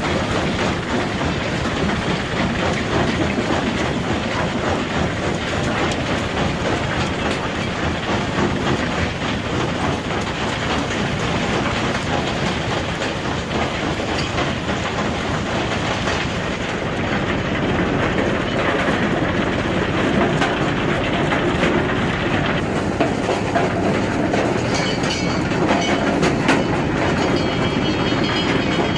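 Broken rock tumbling down a steel feed chute into a rock crusher: a steady, dense clatter and rumble of stone on steel, slightly louder in the second half.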